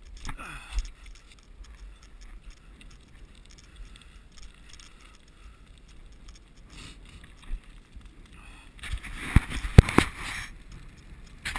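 Bicycle rolling along asphalt, heard from a handlebar-mounted camera: a steady low rumble of tyres and wind. About nine seconds in come a burst of rattling and a few sharp knocks.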